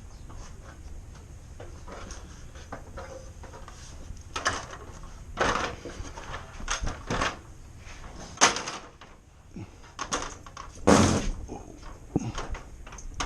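Irregular knocks and short scrapes of something hard being handled, starting about four seconds in, with the loudest strike about eleven seconds in, over a low steady background rumble.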